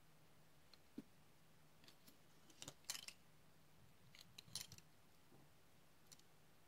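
Faint clicks and light metallic clinks of small brass padlock parts being handled by hand, in two short clusters around the middle, over a low steady hum.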